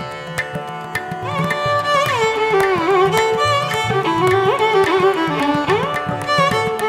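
Background instrumental music: a melody that slides and bends between notes over a steady drone, with light, regular drum strokes.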